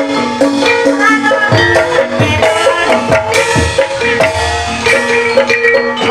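Banyumas calung gamelan music: bamboo xylophones ring out held and repeated notes over quick, busy hand-drum strokes.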